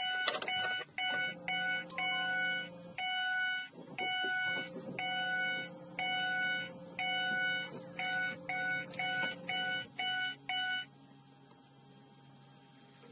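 Mercury Mariner Hybrid's dashboard warning chime beeping repeatedly in uneven pulses, with a low steady hum under it for most of its run, on a car that will not start because its battery is low. The beeping stops about eleven seconds in.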